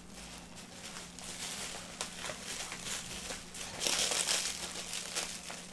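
Black plastic bag crinkling and rustling as hands unwrap a packed lamp from it, in irregular handfuls, loudest about four seconds in.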